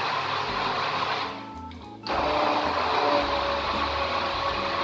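Hand-held immersion blender running steadily as it purées a tomato and pepper sofrito in a tall beaker. The motor fades briefly about a second and a half in, then starts up again at full speed about two seconds in.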